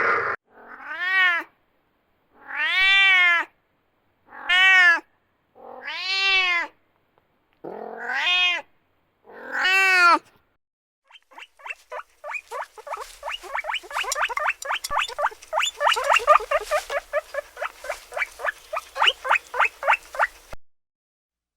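A domestic cat meowing six times, each meow a rising-then-falling call of under a second with short gaps between. A rapid train of short pulsed calls follows, about four a second, and cuts off suddenly near the end.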